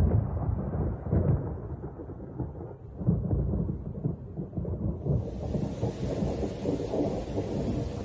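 Thunder rumbling in rolls, with fresh surges about a second and about three seconds in. About five seconds in, the steady hiss of heavy rain comes in over the rumble.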